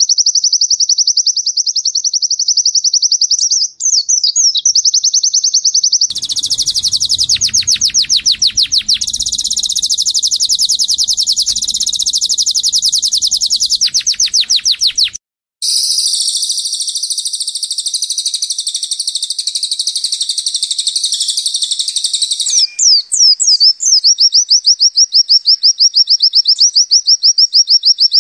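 Cage songbirds singing fast, zipper-like trills, a rapid run of high notes repeated many times a second, with brief pauses. The song breaks off abruptly for a moment about fifteen seconds in. This is white-eye (pleci) and canary song used as training song.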